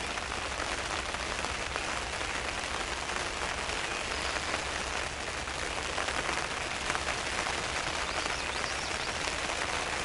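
Steady rain falling on a hunting ground blind, a dense, even patter of drops.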